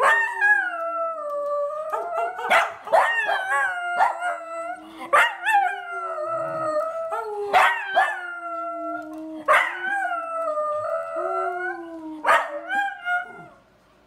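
A dog howling in long, slowly falling wails, broken by sharp barks every second or two, with a man howling along at a lower pitch.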